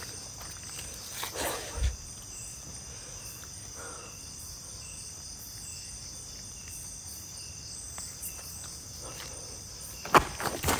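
Night chorus of crickets and other insects: a steady high-pitched drone, with a faint chirp repeating every half second or so. A brief shuffle and a thump come about a second and a half in, and a sharp knock near the end.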